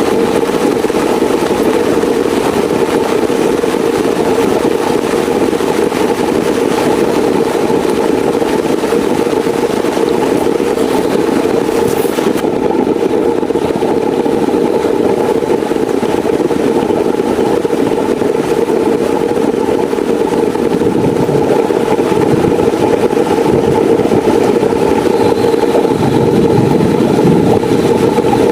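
Heavy rain falling steadily, a dense, even rushing with no let-up; its hiss grows a little duller about twelve seconds in.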